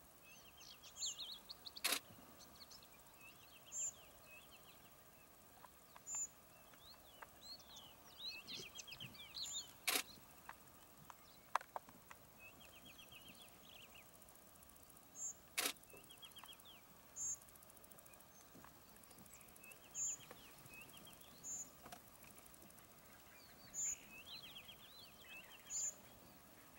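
Birds calling in the bush: a short, high double note repeated every two seconds or so, with buzzy trilling calls in between. Three sharp clicks stand out, spread through the stretch.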